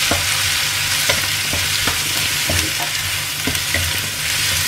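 Sliced chillies, shallots and garlic sizzling in hot oil in a stainless-steel wok, stirred with a wooden spatula that scrapes and knocks against the pan at irregular moments, over a low steady hum.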